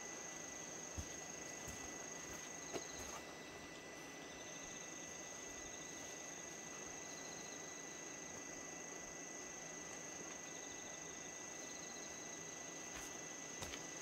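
Insects chirring steadily in a high pitch, with a softer pulsing trill that comes and goes, and a few faint knocks.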